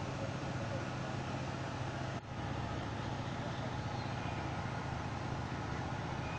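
Steady background noise with a constant low hum, briefly broken off about two seconds in.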